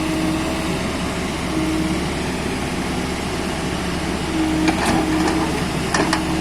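Excavator's diesel engine running steadily, with a tone that fades in and out over it. A few sharp knocks or clicks come in the last second and a half.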